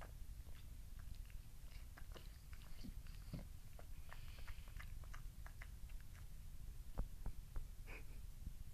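French bulldog smacking its lips and working its mouth in its sleep: irregular wet clicks and smacks, one louder about seven seconds in, over a low rumble.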